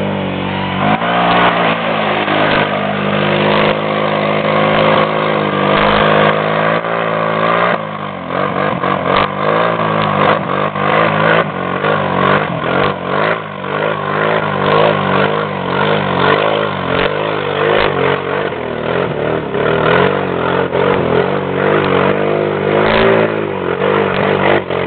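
Kawasaki Brute Force ATV's V-twin engine revving hard under load, its pitch rising and falling as it churns through deep mud and water. From about eight seconds in, irregular splashing of water and mud runs over the engine.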